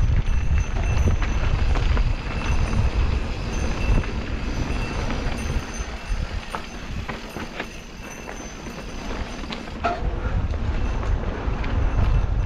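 Mountain bike ridden fast down dirt singletrack: wind buffeting the camera microphone and tyres running over dirt, with scattered rattling clicks from the bike. It quietens for a few seconds in the middle, then picks up again near the end.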